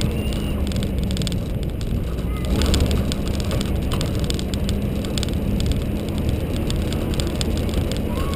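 Nissan GU Patrol's TB45 4.5-litre straight-six petrol engine running steadily as the vehicle drives on a dirt track: a low engine drone with tyre and wind noise. A few faint short high chirps sound over it.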